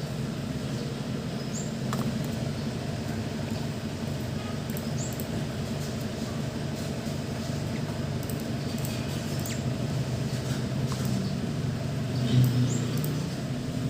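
Baby lovebird giving faint, short, high squeaks every second or two while being hand-fed, over a steady low hum.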